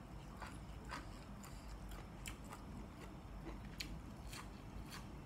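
A person chewing a bite wrapped in a fresh lettuce leaf, faint, with irregular small crisp clicks of crunching and mouth sounds.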